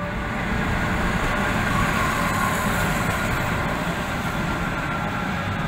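A modern low-floor electric tram passing close by on street rails: a steady rolling rumble with a faint high whine, easing off slightly near the end.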